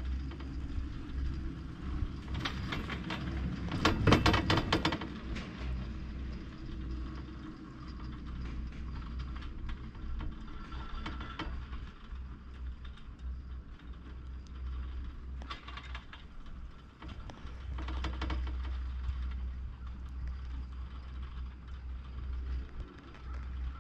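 Poma double chairlift running: the haul rope and chairs clatter through the sheave wheels in several bursts, the loudest about four seconds in, over a steady low rumble.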